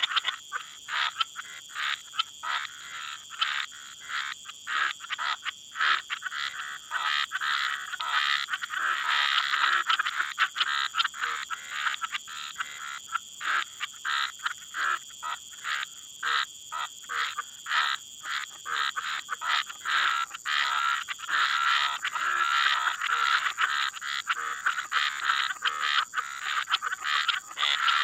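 Night chorus of frogs and toads: many overlapping short, rapidly pulsed calls, rising and falling in density, over a steady high-pitched tone.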